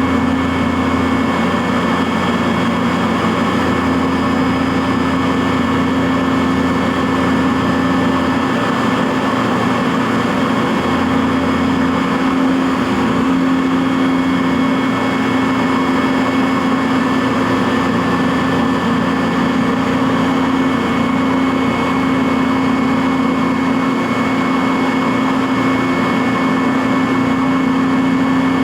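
CNC vertical milling machine running a job cutting Delrin (acetal plastic): a steady machine drone with several constant tones, the strongest a low one and a high whine. A deeper hum underneath cuts out about eight seconds in, returns a few seconds later, and drops out again near the end.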